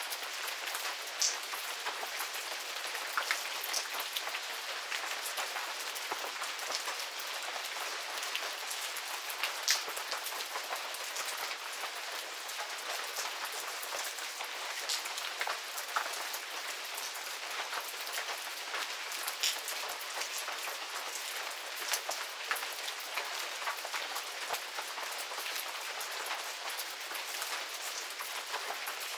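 Medium rain falling steadily on a garden, an even patter with scattered louder individual drop hits.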